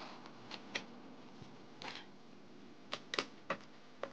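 Retaining clips of a Huawei MateBook D 14's bottom cover snapping free as the cover is pried along its edge with a plastic pick and lifted off: about seven sharp clicks, several close together about three seconds in.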